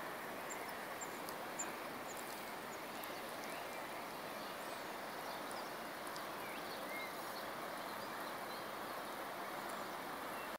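Steady outdoor background noise with a few faint, short, high bird chirps scattered through it.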